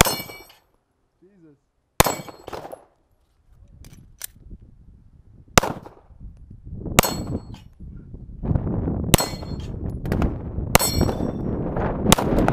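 9mm Glock 19 pistol fired slowly at AR500 steel plates: about seven shots, one to three seconds apart. Most shots are followed by the high ring of a struck steel plate. A steady background noise rises from about eight seconds in.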